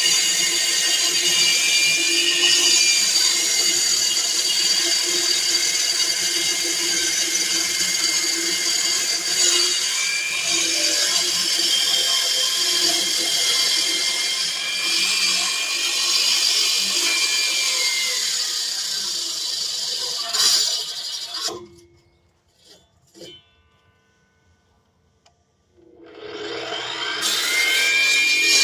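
Power tool motor running steadily with a high whine. It cuts out about three-quarters of the way through, and a few seconds later it spins back up with a rising whine.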